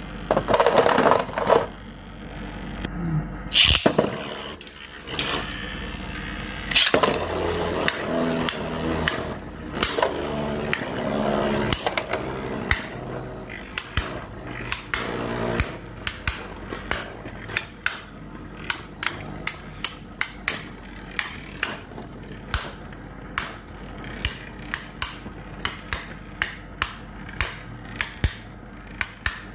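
Two plastic Beyblade spinning tops knocking against each other as they spin in a plastic stadium. In the second half the clacks come steadily, about two a second.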